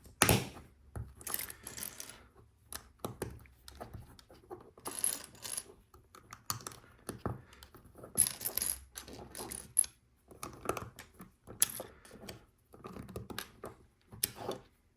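LEGO plastic pieces clicking and rattling as they are handled and pressed together, in irregular clusters of short clicks throughout.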